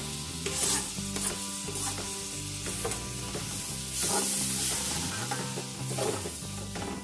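Chopped tomato sizzling in hot oil in an aluminium pot while a wooden spatula stirs and scrapes through it, with a louder rush of sizzling about four seconds in.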